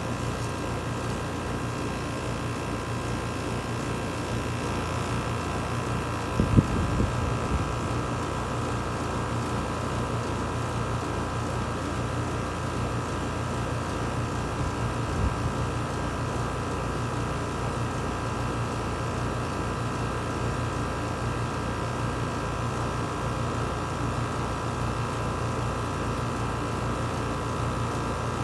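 2006 American Standard Allegiance 14 four-ton central air conditioner condensing unit running steadily, its scroll compressor humming under the outdoor fan. A brief knock about six and a half seconds in, and a fainter one around fifteen seconds.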